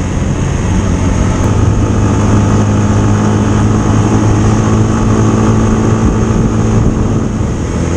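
Motorcycle engine running steadily while cruising on an open road, a constant engine hum with road noise.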